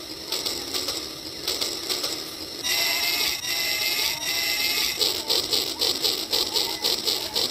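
Battery-powered toy train running on plastic track: a fast, even clicking of its motor gears and wheels. About a third of the way in it gets louder and some steady higher tones join.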